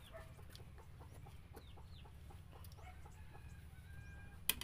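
Chickens clucking faintly in the background. Soft small clicks of someone eating soup run alongside, with one sharp click near the end.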